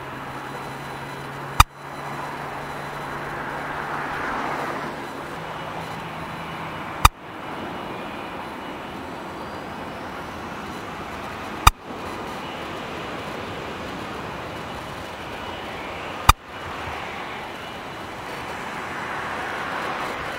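Jet engines of a twin-engine widebody airliner taxiing, a steady whooshing rush, with a low vehicle hum that stops about five seconds in. A sharp click cuts in about every four and a half seconds.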